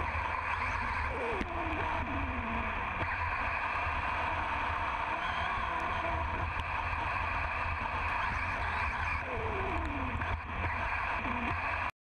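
Onboard sound of an HPI Blitz RC short-course truck running fast over a wet, muddy dirt track: a steady rushing of motor and tyres through mud, with the motor's pitch gliding up and down as it speeds up and slows. It cuts off suddenly near the end.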